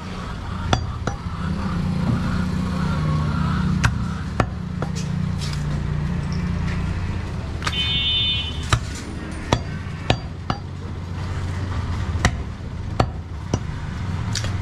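A large butcher's knife striking a wooden chopping block and bone as goat ribs are cut apart, making irregular sharp chops about once a second over a steady low hum.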